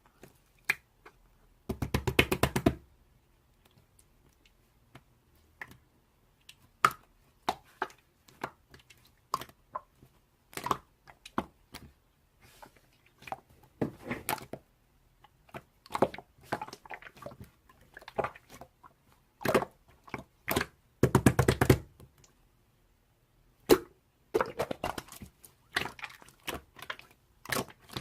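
Hands squishing, poking and folding slime, making irregular sticky clicks and pops. Two bursts of rapid crackling, like a run of trapped air bubbles popping, come about two seconds in and again about three-quarters of the way through.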